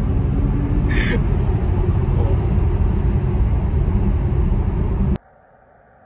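Steady low tyre and road rumble inside the cabin of a Tesla Model S P100D running at about 100–110 km/h, with no engine note. About five seconds in it cuts off suddenly to a faint quiet hiss.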